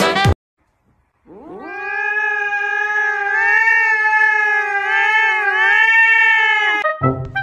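A cat yowling: one long drawn-out call that rises at the start and is then held for about five seconds, wavering slightly in pitch before it stops.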